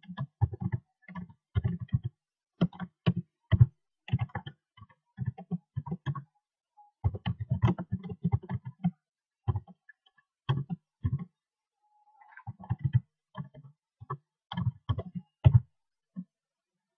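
Typing on a computer keyboard: irregular runs of quick keystrokes with a few short pauses.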